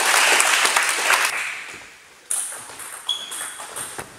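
Clapping fades out over the first second or two. Then, about two seconds in, a table tennis rally starts: the ball clicks sharply off the bats and the table several times.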